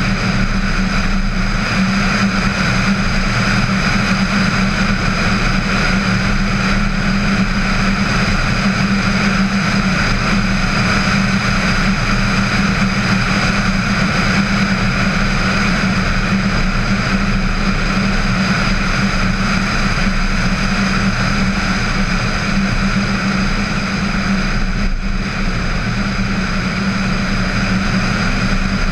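Steady driving noise of a VW Tiguan at road speed: a continuous hum of engine and tyres with rushing noise, as picked up by a camera suction-mounted on its hood.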